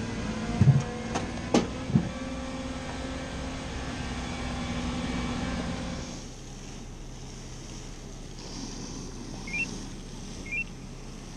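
Steady engine and hydraulic hum of a fire-service aerial platform truck, with a few sharp knocks in the first two seconds. The hum drops away about six seconds in, and three short rising beeps follow about a second apart near the end.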